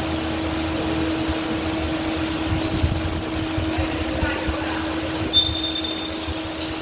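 Basketball game in a gym hall: a steady mechanical hum, like the hall's fans, runs under scattered footfalls and ball thuds. A brief high squeak comes about five and a half seconds in.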